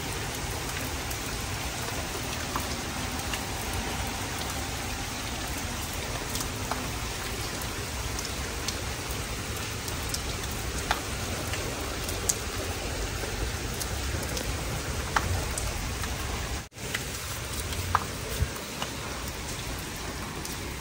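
Steady rain falling, an even hiss with drops now and then hitting as sharp ticks; it cuts out for a moment about three-quarters of the way through.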